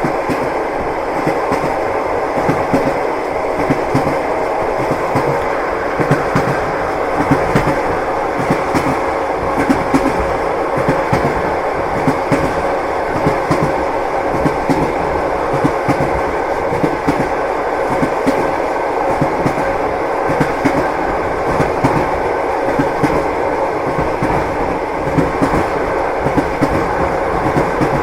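Lastochka electric train, a Siemens Desiro RUS, running along the line: a steady rumble of wheels on rail with frequent sharp clacks of the wheels over the rail joints.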